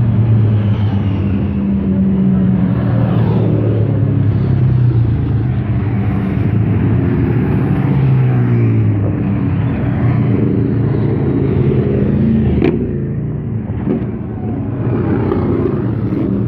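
A string of motorcycles riding past one after another, their engines running loud, each rising and falling in pitch as it goes by. A single sharp click comes about twelve and a half seconds in.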